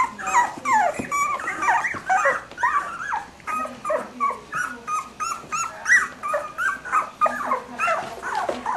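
A litter of young Cavalier King Charles Spaniel puppies whimpering and yelping, many short squeaky cries that bend up and down in pitch, several a second, overlapping one another.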